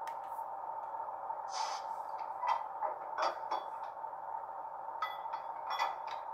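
Sound decoder in an MTB model of a CFR 060-DA diesel locomotive playing its diesel-engine sound through a small speaker: a steady hum, broken by short hisses and clicks several times.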